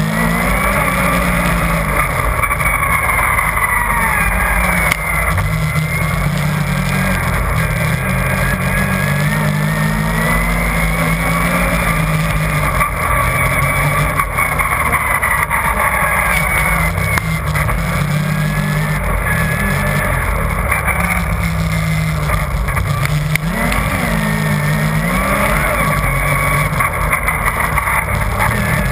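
Yamaha Nytro RTX SE snowmobile's four-stroke triple engine running at trail speed, its pitch rising and falling with the throttle, with a higher whine that rises and falls along with it.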